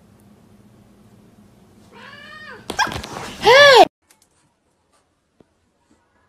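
Domestic cat meowing twice: a quieter call, then a loud one that rises and falls in pitch.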